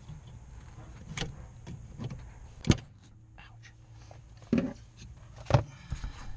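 Scattered clicks and knocks of hands and a tool working the small retaining clip off where the brake pedal snaps onto the brake booster pushrod, under the dashboard. The sharpest click comes about two and a half seconds in.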